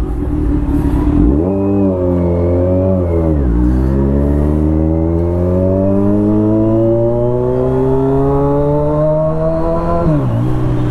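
Kawasaki Z1000 motorcycle's inline-four engine through a loud exhaust, accelerating on the road. The pitch drops at a gear change about three and a half seconds in. It then rises slowly and steadily for several seconds before dropping again at another shift near the end.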